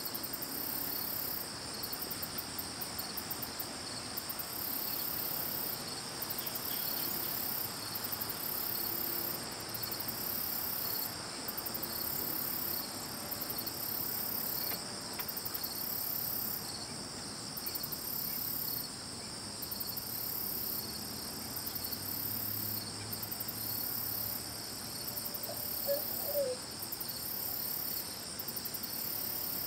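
Chorus of crickets and other insects: steady high trills, with a still higher, shriller trill that starts and stops every second or two. A short faint call near the end.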